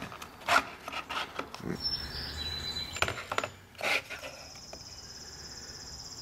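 Clicks and knocks of a small tube-tester box being handled and turned over on a wooden table. About four seconds in, a steady high trill sets in and carries on.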